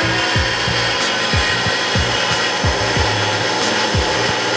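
A 1940s Delta drill press, converted to a DC treadmill motor, is running at top speed with a steady whir from its V-belt and pulleys. A beat of short falling bass thumps plays over it.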